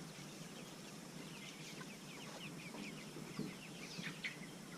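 A flock of meat chickens peeping and cheeping softly, many short falling chirps overlapping.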